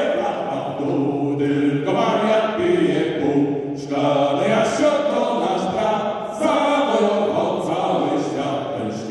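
Male vocal group singing a sea shanty together in harmony, in long held phrases.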